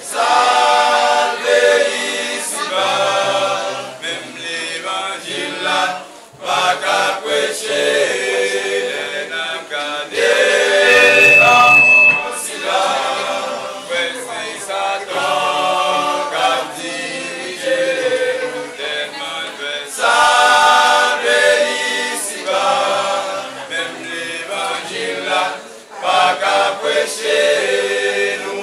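Men's a cappella choir singing a sacred song in harmony, phrase after phrase, with no instruments.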